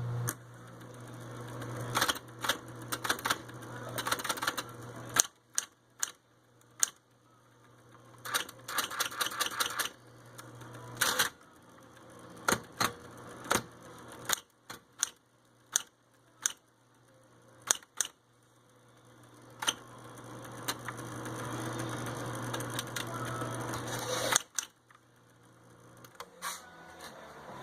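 Smith-Corona 250 electric typewriter in use: its motor hums while the keys strike, single clacks and quick runs of typing. The hum drops out about five seconds in and comes back more than once.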